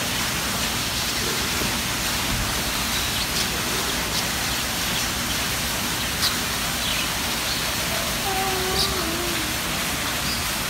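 Decorative indoor waterfall, water falling down artificial rock into a pool in a steady rush.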